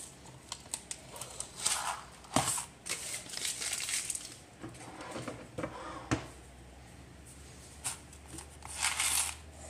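Crinkling and rustling of a single-serve mac and cheese cup's wrapper and lid being peeled off and handled, with scattered small clicks and two sharp knocks, about two and a half and six seconds in.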